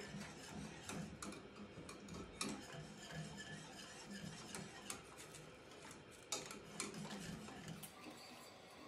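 Wire whisk stirring hot chocolate in a metal saucepan: faint, irregular clicks and scrapes of the wires against the pot, a slightly sharper click about two and a half seconds in and another near six seconds.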